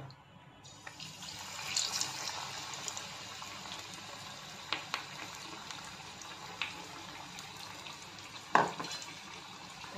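Besan-battered stuffed chilli (mirchi bhaji) deep-frying in a kadhai of hot oil: the oil starts sizzling about a second in as the chilli goes in, then settles to a steady sizzle with a few sharp pops. A short knock comes near the end.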